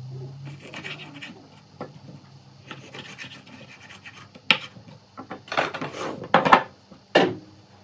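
Sweet potato being peeled: a run of short rasping scrapes of a blade across the skin, fainter at first and with several louder strokes in the second half.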